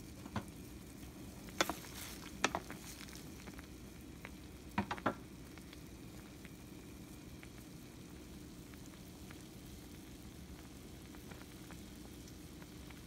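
Pan of water with cavatelli and broccoli at a rolling boil: a steady bubbling hiss, with a few sharp pops or clicks in the first five seconds.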